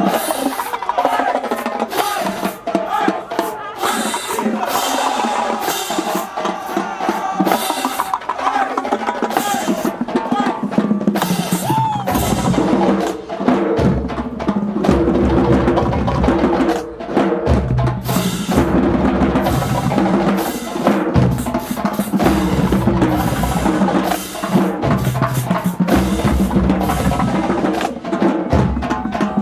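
Marching band drumline playing a fast cadence of snare-drum rolls and strokes, with the low bass drums joining in about twelve seconds in.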